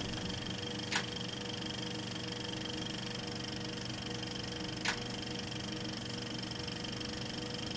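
Old film projector sound effect: a steady mechanical whir with faint hiss, and two sharp clicks, one about a second in and one near five seconds in.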